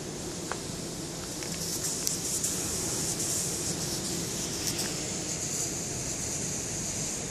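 Steady outdoor background noise: a low rumble under a high, even hiss, with a few faint clicks.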